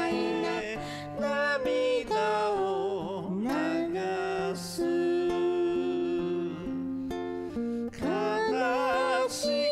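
A man singing a slow Japanese ballad with vibrato on the held notes, over guitar accompaniment; the song trails off near the end.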